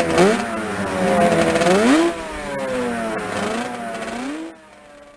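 Motorcycle engine revving, its pitch rising and falling twice before fading away near the end.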